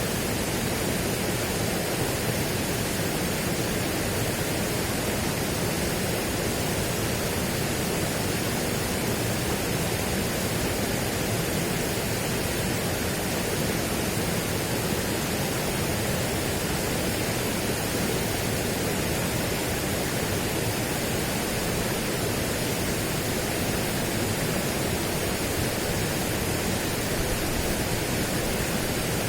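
Steady, unbroken rushing noise spread evenly from low to high pitch, with no swells, drops or distinct events.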